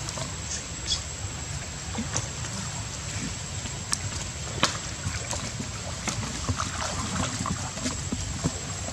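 Water splashing and sloshing as several monkeys swim and paddle through a pool, with frequent short, sharper splashes.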